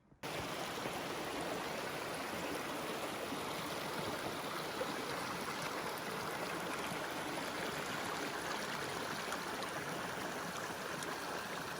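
Rushing water of a mountain stream: a steady, even rush that starts suddenly right at the beginning and holds without change.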